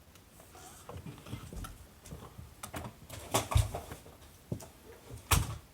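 Scattered light clicks and knocks of tactical flashlights being handled and switched. The two loudest knocks come about three and a half and five and a half seconds in.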